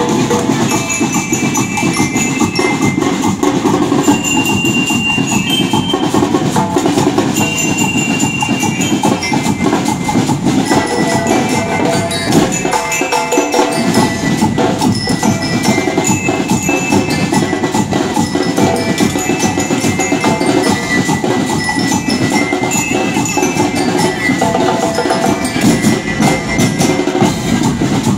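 Marching band playing: bell lyres ring out a melody over steady drumming. The drums briefly drop out about halfway through.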